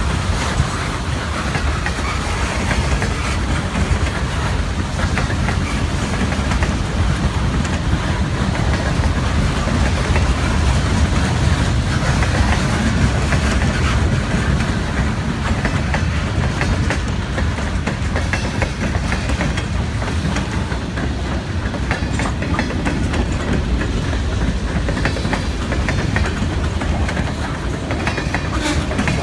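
Freight cars, boxcars and covered hoppers, rolling steadily past on the track: the continuous rolling noise of steel wheels on rail, with repeated clacks as the wheels cross the rail joints.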